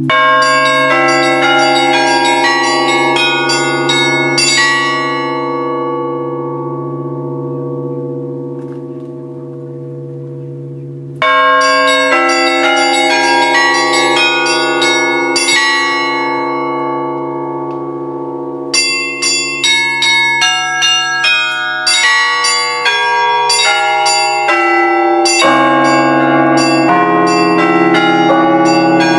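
Russian Orthodox church bells being rung. A large bell is struck and left to ring out, then struck again about eleven seconds in. From about two-thirds of the way through, smaller bells join in quick rhythmic strokes over the big bell's hum.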